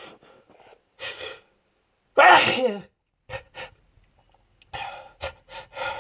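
One loud sneeze about two seconds in, its pitch falling, after a short intake of breath and followed by several short breaths. It is an allergy sneeze brought on by sniffing pollen from flowers.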